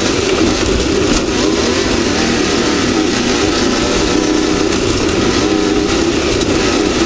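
Off-road race vehicle's engine running steadily under load at speed, mixed with a constant rush of wind and terrain noise and a few faint knocks.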